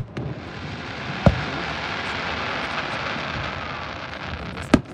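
Aerial fireworks shells bursting: sharp bangs right at the start, about a second in and near the end, with a steady hiss between them.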